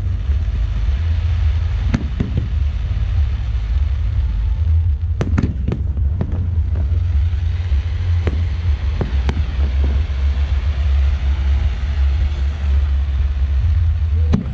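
Aerial fireworks shells bursting with sharp bangs, several in quick succession about five to six seconds in and more a few seconds later, over a steady low rumble.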